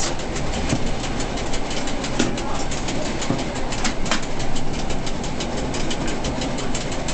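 EN57 electric multiple unit running along the track, heard from inside its driver's cab: a steady rumble with a rapid, irregular clatter, and one sharper knock about four seconds in.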